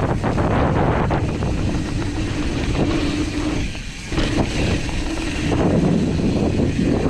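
Mountain bike rolling fast down a dirt trail: tyres on dirt and wind buffeting the camera microphone, with many short knocks and rattles from the bike over bumps.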